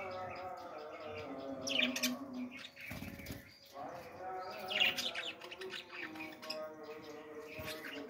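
Budgerigars chirping and warbling in the aviary, with two louder sharp chirps about two and five seconds in.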